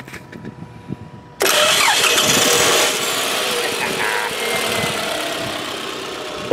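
A car engine that would not crank suddenly cranks and starts about a second and a half in. It is loudest for the first second or so, then runs steadily at a lower level. The starter coming to life while the key is held in the crank position, during a starter tap test, points to a faulty starter.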